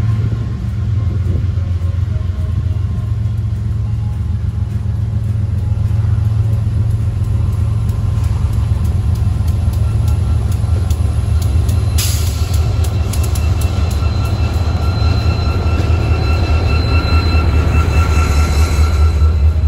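Freight train passing close by: diesel locomotives giving way to covered hopper cars rolling past, a loud steady low rumble. About twelve seconds in there is a sharp click, then a high steady squeal from the cars' wheels.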